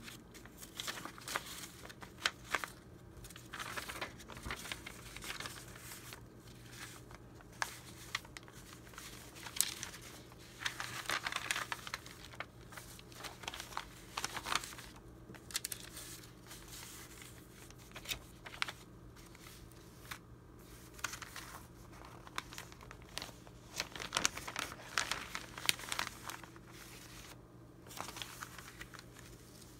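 A stack of vintage paper documents and receipt slips being leafed through and handled by hand: irregular rustling and crinkling with crisp flicks and crackles as sheets are turned and lifted.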